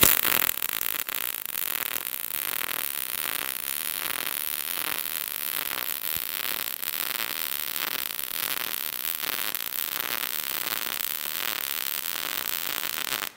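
MIG welding arc in short-circuit transfer, 0.030 ER70S-6 wire with 75/25 shielding gas, crackling steadily as a bead is run over dirty, contaminated steel. This is the sound of welding on unprepped metal. It cuts off abruptly near the end when the trigger is released.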